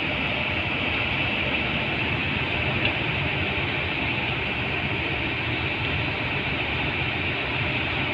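Kobelco SK200 excavator's diesel engine running steadily at a constant pitch, with a steady hiss over it.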